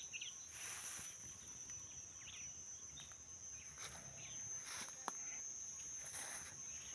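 Faint outdoor ambience: a steady high-pitched insect trill, with a few short bird chirps and the soft rustle of footsteps among potted seedlings.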